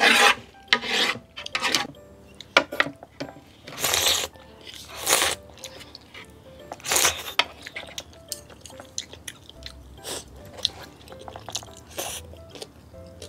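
Close-up eating sounds: a wooden spoon scraping leftover braised mackerel and radish from a plate, then short slurps and chewing as the leftovers are eaten straight off the plate, with light clicks of wooden chopsticks.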